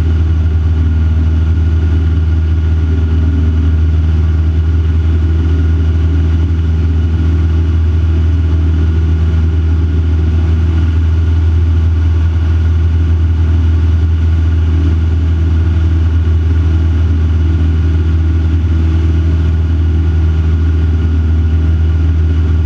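Van's RV-4 light aircraft's piston engine and propeller running steadily in flight, heard from inside the cockpit as a loud, even drone with no change in pitch.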